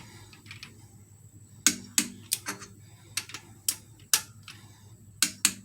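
Ratcheting 3/8-inch-drive torque wrench on a cylinder head bolt: about a dozen sharp, irregularly spaced clicks, starting a little under two seconds in.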